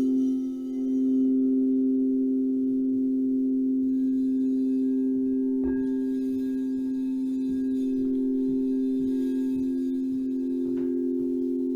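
Singing bowls ringing in a sound bath: two low, sustained tones with a slow wavering pulse. About six seconds in, a light strike adds higher ringing overtones.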